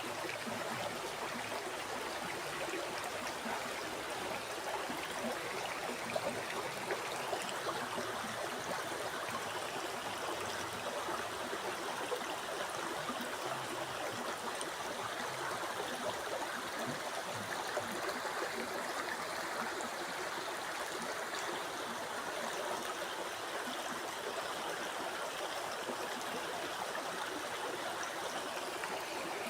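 River water flowing over rocks: a steady babbling rush with small gurgles.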